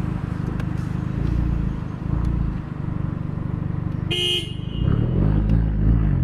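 Another driver's car horn toots once, briefly, about four seconds in, heard from inside a car over the low steady rumble of its idling engine.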